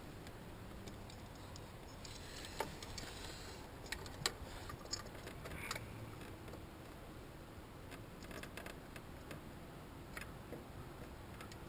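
Faint, scattered light clicks and taps of metal hand tools being handled, a few seconds apart, over a low hiss.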